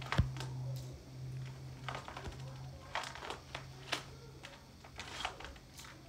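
Bead chain of a roller blind being pulled hand over hand, making irregular clicks and rattles as the blind rolls up. A steady low hum runs under the first couple of seconds.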